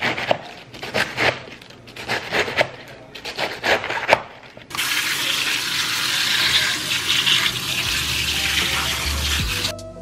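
A knife chopping iceberg lettuce on a plastic cutting board in a quick, uneven run of strokes. About five seconds in, a kitchen tap starts running steadily over the chopped lettuce in a colander in the sink, and music comes in under the water near the end.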